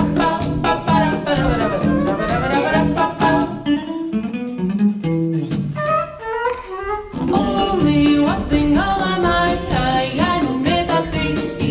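Music with a steady beat and sliding melodic lines; it thins out to a sparse passage about four seconds in and comes back in full about three seconds later.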